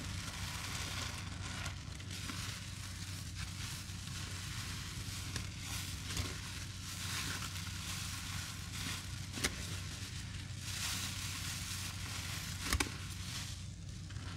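Soapy sponges loaded with cleaning paste, dish soap and Comet powder being squeezed and worked by gloved hands, the wet foam and paste making a continuous squishing noise that swells and eases, with three short sharp clicks.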